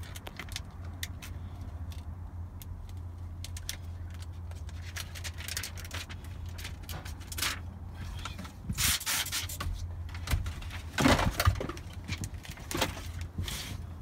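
Rolled plastic window-tint film crackling and rustling as it is handled and unrolled, with scattered light clicks and a few louder scraping rustles, the loudest about two-thirds of the way through. A steady low hum runs underneath.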